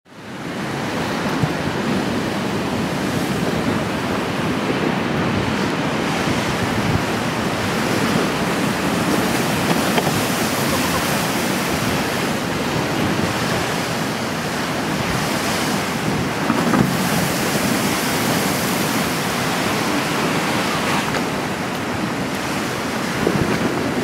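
Storm waves on Lake Ontario breaking against a concrete seawall, with strong wind buffeting the microphone: a steady, dense noise that fades in at the very start.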